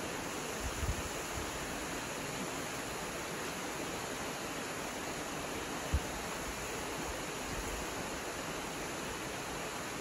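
Waterfall pouring over a rock cliff into a plunge pool: a steady rushing of falling water. A few brief low thumps come about a second in and near six seconds.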